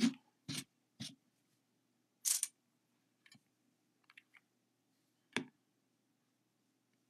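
Small handling sounds of nail-stamping work with a polish bottle and metal stamping plate: a short scrape about two seconds in, a few faint ticks, and one sharp click just past five seconds.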